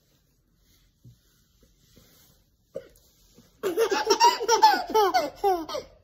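A single short hiccup from the mother about three seconds in, then a baby's belly laugh: a fast run of loud, pitched 'ha' sounds over the last two and a half seconds.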